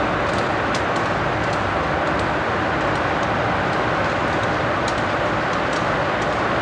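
A consist of GE diesel locomotives rolling past, a steady loud rumble of engines and wheels on rail with light scattered clicks.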